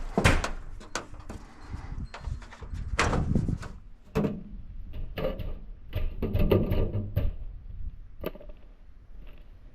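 A string of knocks and clatters from a section of aluminum downspout being handled and set in place against a wall.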